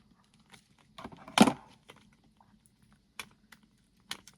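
Small clicks and taps of lip gloss tubes and their plastic packaging being handled and pried at, with one louder knock about a second and a half in.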